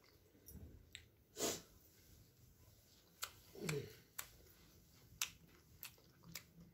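Scattered soft clicks and smacks of someone eating chicken momos close to the microphone, with a short falling hum about midway.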